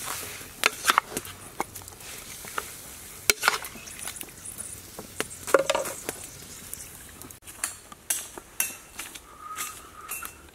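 Hot wok sizzling as a heap of snakes goes into it, with scattered sharp clicks and knocks of metal against the pan throughout.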